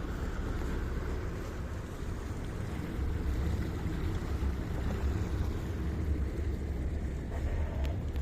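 A boat's motor running with a steady low rumble, mixed with wind buffeting the microphone.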